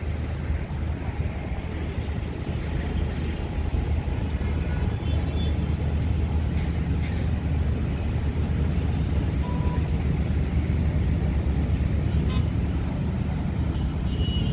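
Steady rumble of busy city road traffic.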